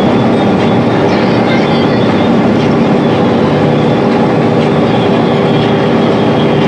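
Cabin noise inside a 2012 Gillig BRT transit bus running on the highway: a steady drone from its Cummins ISL 280 straight-six diesel and Allison B400R automatic transmission, mixed with road and tyre noise and a low, even hum.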